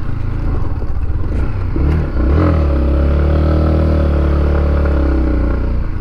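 Yamaha MT-15's single-cylinder engine pulling under throttle while riding. Its note rises about two seconds in, then holds steady and eases slightly.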